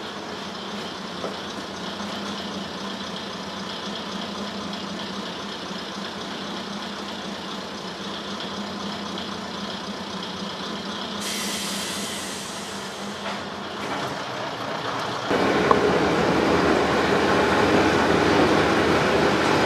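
Diesel engine of a vintage Japanese diesel railcar (KiHa 222 / KiHa 2005) idling steadily while standing. About fifteen seconds in it becomes much louder and fuller, heard right at the car's front.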